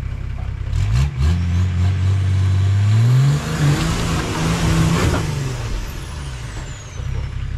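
An off-road 4x4's engine revs up about a second in, holds, climbs again, then eases off and falls away, with the rush of the vehicle loudest in the middle.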